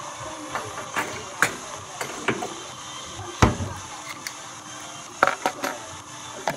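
A string of sharp clicks and knocks from things being handled and set down on a wooden bench, with one heavier thump about halfway through and a quick cluster of clicks near the end.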